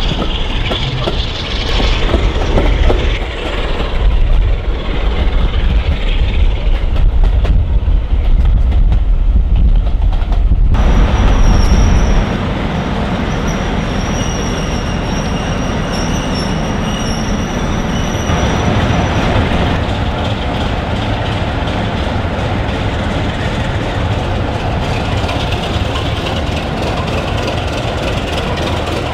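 Diesel-hauled train running into a tunnel, heard from an open carriage window: a loud, deep rumble. After a cut about ten seconds in, a Class 47 diesel locomotive with its Sulzer twelve-cylinder engine idling steadily, with a thin high whine for several seconds.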